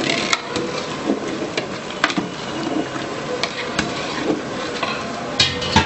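Hot water poured from a steel jug into a large metal pot of rava roasted in oil, the mixture hissing and bubbling as the water goes in. A long steel ladle knocks and scrapes against the pot now and then, with the loudest knocks near the end.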